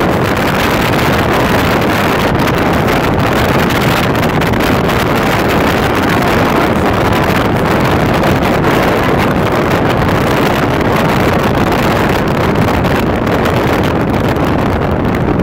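Loud, steady rush of wind and road noise from a vehicle travelling at freeway speed, with wind buffeting the microphone.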